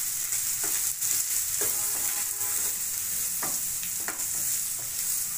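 Chicken pieces sizzling in oil in a nonstick frying pan while a wooden spatula stirs in the spices, with a steady hiss and a few short scraping strokes of the spatula against the pan.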